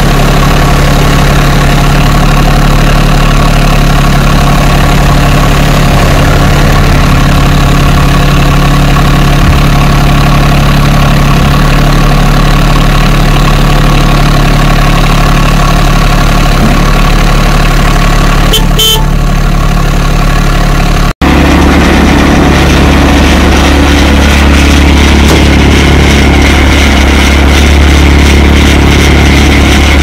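TYM T254 compact tractor's three-cylinder diesel engine running steadily and loud. The sound drops out for an instant about twenty seconds in, then the engine carries on with a deeper note.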